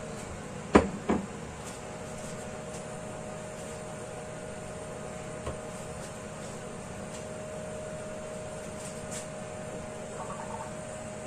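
Two sharp knocks close together about a second in, as a bottle is set down on the kitchen counter, over a steady mechanical hum, with one faint click midway.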